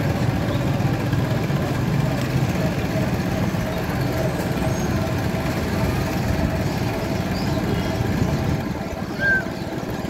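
Steady low rumble of motorcycle engines and street traffic, with a short high chirp about nine seconds in.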